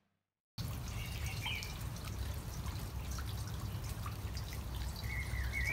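Outdoor garden ambience that begins after a brief silence: a steady low rumble with small dripping, trickling sounds and a few short bird chirps about a second in and again near the end.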